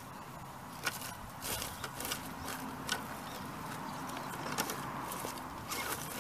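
Axial SCX10 radio-controlled rock crawler creeping over dry brush and dirt: a faint steady whine from its electric motor and gears, with scattered sharp crackles and snaps of twigs and debris under the tires.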